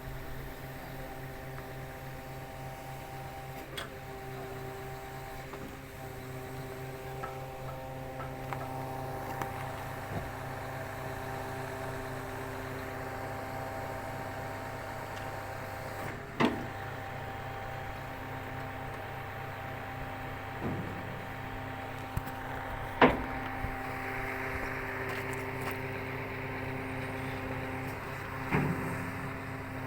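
Engine of a concrete block machine running steadily with an even hum, broken by three sharp knocks, the loudest about two-thirds of the way in, as blocks are handled.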